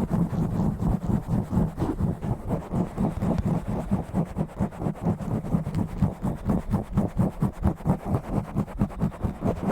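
Fast, rough scratching and rubbing directly on an uncovered microphone: a rapid run of deep, dull strokes, about four to five a second.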